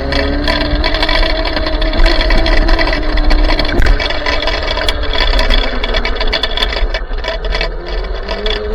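Electric minibike's motor whining while being ridden, its pitch rising and falling with speed, over a strong low rumble and scattered clicks and rattles.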